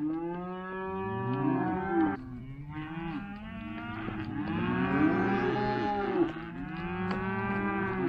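A pen of freshly weaned Black Angus calves bawling, many long calls overlapping one after another without a break. They are bawling for their mothers and for milk after weaning.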